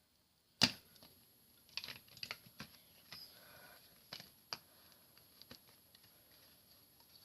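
Small plastic clicks and rattles of a TV remote's casing and parts being handled and pressed together, with the sharpest click about half a second in and scattered lighter ones after.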